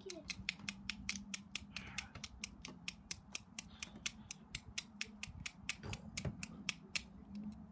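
A rapid, even series of sharp mechanical clicks, about five a second, that stops about seven seconds in, over a low steady hum.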